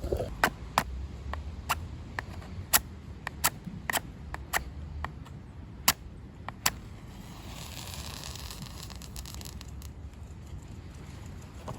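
Campfire wood crackling, with a dozen or so sharp, irregular pops over the first seven seconds, followed by a soft hiss.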